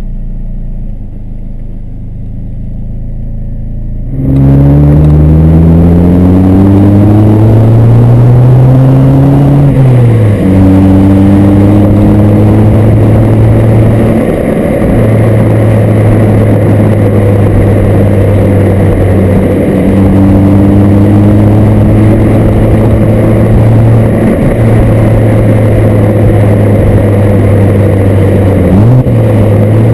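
Stock exhaust of a 2007 Mini Cooper R56's 1.6-litre four-cylinder, heard right at the tailpipe. It is quiet and muffled for the first four seconds, then turns loud as the car pulls away. The pitch rises under acceleration to a drop at a gear change about ten seconds in, then holds a steady drone at cruising speed with short dips every few seconds, over road noise.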